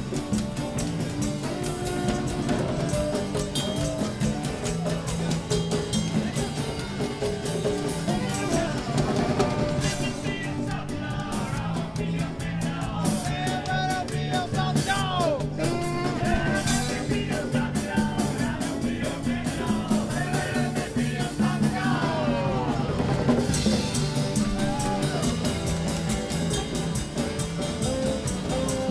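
Live band jamming on stage: a drum kit and amplified guitars and bass playing together, with a lead line that bends up and down in pitch, most clearly about halfway through.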